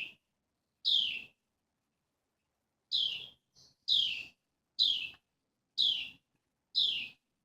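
A bird under a deck calling: a short chirp that falls in pitch, repeated about once a second, with a pause of about a second and a half after the second call.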